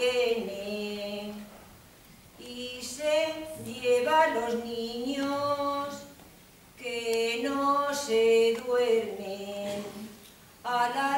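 Unaccompanied solo voice singing a Spanish folk lullaby (nana) in slow phrases of held notes, with short breaks between phrases.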